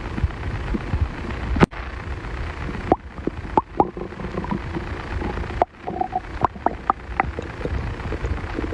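A man's stomach growling and gurgling: a low rumble with many short pops and brief squelchy gurgles, and a sharp click about one and a half seconds in.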